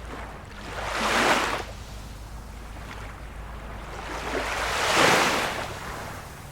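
Small waves of a calm sea washing in, two gentle swells of surf about four seconds apart, the second a little louder.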